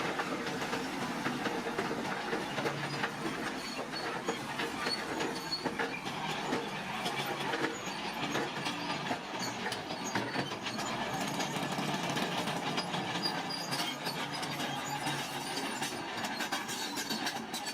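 A bulldozer working rocky ground: its engine running under a dense, steady metallic clatter.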